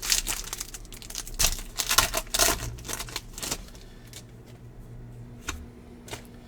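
Baseball trading cards being handled and flipped through: a quick run of sharp clicks and rustles that thins out about halfway through to a few scattered clicks.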